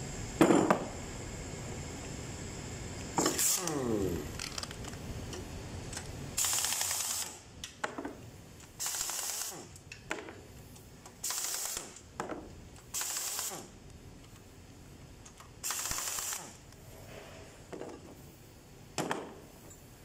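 A sharp metal clank about half a second in. Then an air tool runs in about six short hissing bursts, loosening bolts on the engine's timing cover, with a falling whine a few seconds in.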